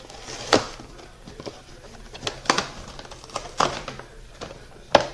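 Plastic blister packaging of a boxed amiibo figure being pulled and torn open by hand, with irregular sharp crackles and snaps of plastic and cardboard, about five of them.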